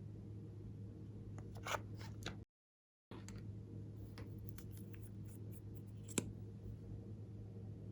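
Scattered crisp clicks and crackles from hands working with slime-making materials, over a steady low hum. There is a split second of dead silence about two and a half seconds in, and one sharp click stands out about six seconds in.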